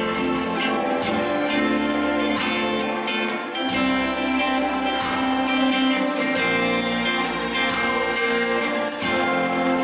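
Worship band music with guitar, playing steadily.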